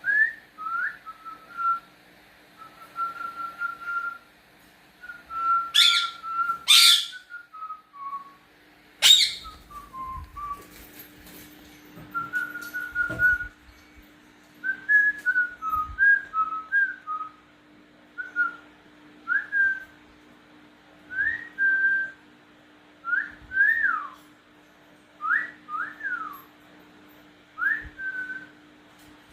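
Whistling back and forth between a person and pet cockatiels: short clear whistled notes, some held, some sliding up or down, repeated every second or two. A few sharp, louder calls or clicks cut in about a quarter of the way through.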